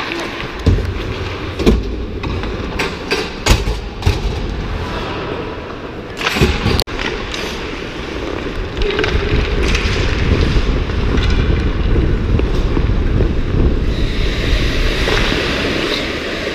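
Hockey skates cutting and gliding on rink ice, with wind rushing over a helmet-mounted action camera's microphone as a steady rumble. Several sharp knocks and clatters come in the first few seconds, as of skates and stick against the bench boards, before the skating rumble builds and holds.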